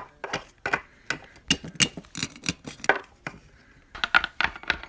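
Small hard plastic toy pet figure tapped along a hard floor to play footsteps: a string of short, irregular clicking taps, coming faster near the end.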